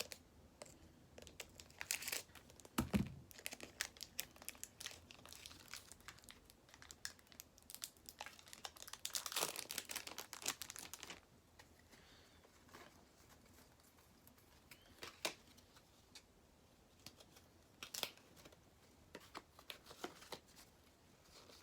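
Trading-card pack wrapper crinkling and tearing open, dense crackling for about the first ten seconds with a soft thump about three seconds in, then scattered light clicks and taps of cards being handled.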